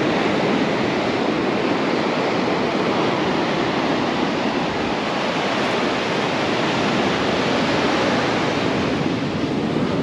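Ocean surf breaking and washing up a sand-and-cobble beach: a steady rush of water.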